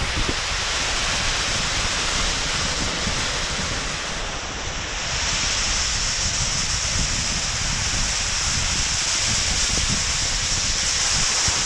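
Snowboard sliding and carving over soft spring slush, a steady hiss of the board on the snow, with wind buffeting the microphone. The hiss grows brighter about five seconds in.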